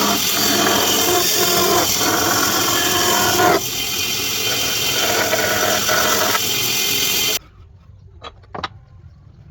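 A power tool working wood, running loud and steady with small changes in its tone as it cuts. It stops abruptly near the end, followed by a few faint knocks.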